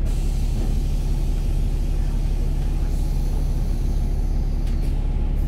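Bus engine running steadily under way, a constant low drone with road rumble.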